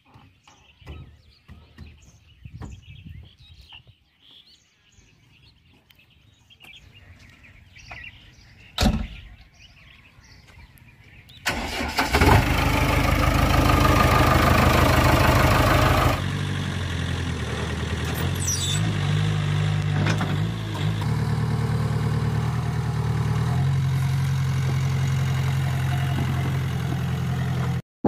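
JCB backhoe loader's diesel engine starting about twelve seconds in, running loudly for about four seconds, then settling to a steady idle, its note lifting briefly around twenty seconds. Before the start there are only small clicks and one sharp knock about nine seconds in.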